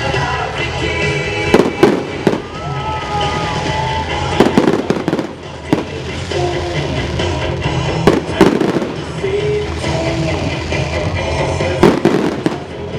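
Fireworks going off in a series of sharp bangs, some in quick pairs, over continuous show music.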